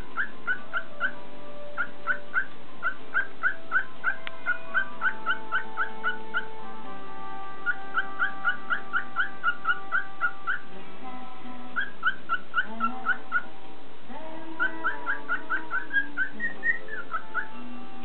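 Cockatiel chirping in quick runs of short, even chirps, about four a second, with brief pauses between runs and one rising call near the end, over background music.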